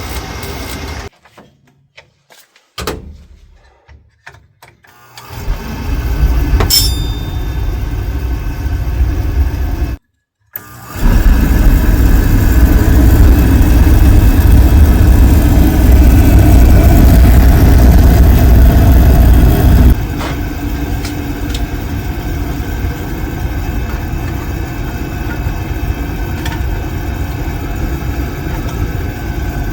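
Williamson furnace oil burner firing and running: the burner motor and blower with a steady low rumble from the oil flame. The rumble is loudest for several seconds, then settles to a lower, steady level about two-thirds of the way through.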